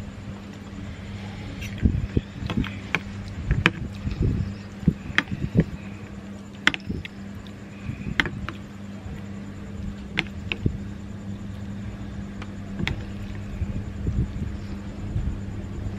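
Metal spoon and fork clinking and scraping against a glass plate while someone eats, in irregular sharp clicks every second or so, over a steady low hum.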